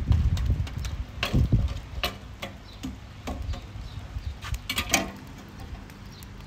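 Irregular light clicks and knocks, about a dozen over several seconds, over a low rumble that fades after the first second and a half.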